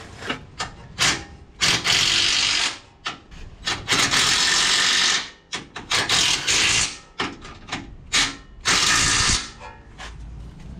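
Cordless impact wrench run in repeated bursts, some brief and some about a second long, tightening the front stabilizer bar mounting nuts.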